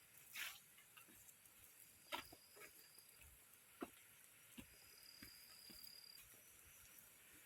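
Near silence with a few faint scattered clicks and snaps, and a thin high steady buzz, likely an insect, heard twice for about a second each.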